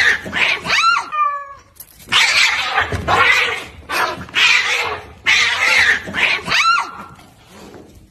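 Cats fighting: yowling and screeching in repeated bursts, with a short falling yowl just after a second in.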